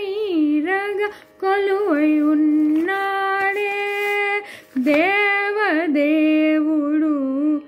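A woman singing a Carnatic-style devotional song solo, her long held notes sliding and shaking in ornamented turns, with two short pauses for breath. A faint steady drone tone runs underneath.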